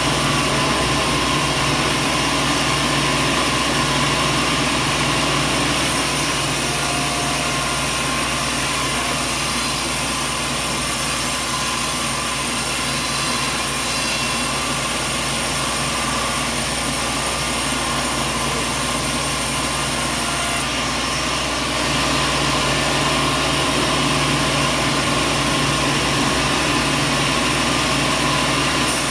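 Sawmill machinery running steadily: a constant loud mechanical hum and whir that shifts slightly in tone a little past halfway.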